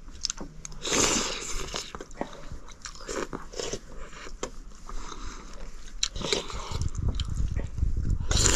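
People eating noodles close to the microphone: chewing and biting, broken by scattered small clicks. There are short louder noisy bursts about a second in and near the end, and a low rumble under the last couple of seconds.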